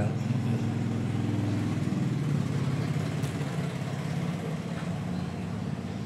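A motor engine idling steadily in the background, a low even hum.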